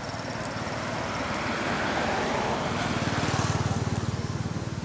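A motor vehicle passing by, its engine growing louder to a peak about three and a half seconds in, then fading.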